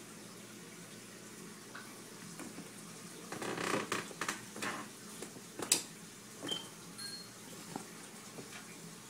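Aquarium filter water running and trickling steadily into the tank. Through the middle come a few irregular knocks and rustles, the loudest a single sharp click a little before six seconds in.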